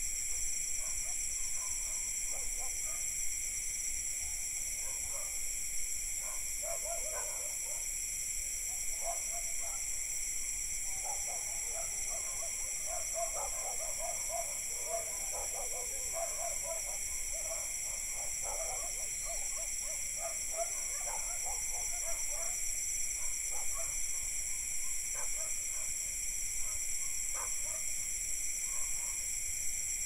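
Distant dogs barking in scattered bouts, busiest around the middle, over a steady high chorus of crickets and cicadas.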